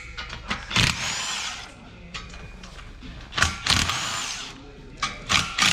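A handheld power tool run in three short bursts of about a second each, its whine spinning up and down, with clicks and knocks between.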